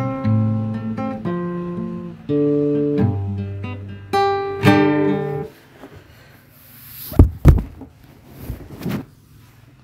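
Acoustic guitar music, plucked notes and chords, that stops about halfway through; near the end come two loud short thumps a moment apart and a few fainter noises.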